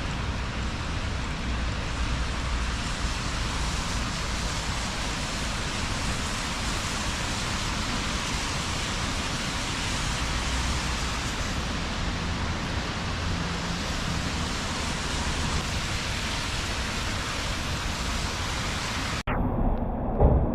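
Steady hiss of rain, with a low rumble of passing traffic underneath. It cuts off abruptly about a second before the end.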